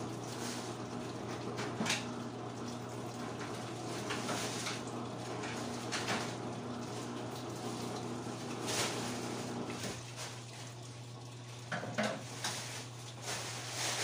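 Plastic bag rustling and small household items knocking as they are handled and cleared away, over a steady low hum and a hiss that drops away about ten seconds in.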